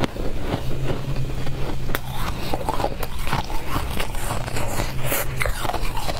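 Close-up crunching and chewing of mouthfuls of blue crushed ice, a dense run of sharp crackles. A low steady hum sits under most of it.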